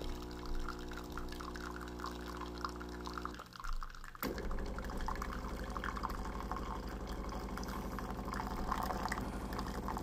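De'Longhi La Specialista espresso machine's pump humming steadily as it pulls a shot, with coffee trickling into the cup. The hum drops out for under a second about three and a half seconds in, then starts again with a buzzier tone.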